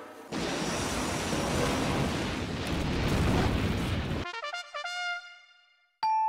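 A long explosion rumble with a crackling noisy haze, lasting about four seconds after a brass fanfare breaks off. It cuts off suddenly into a few ringing notes that fade away, and a single chime sounds near the end.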